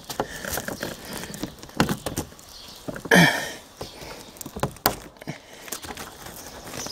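Scattered clicks and scrapes of a screwdriver prying small plastic clips out of a car's roof grab-handle mounting, with one louder, longer noise about three seconds in.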